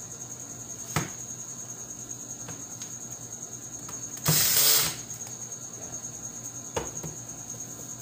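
Handling noise from a magnetic contactor and its wiring on a workbench: a sharp click about a second in and a few lighter clicks. About four seconds in a loud brushing rustle lasts half a second as a hand passes close to the microphone. A steady high insect chirring, like crickets, runs underneath.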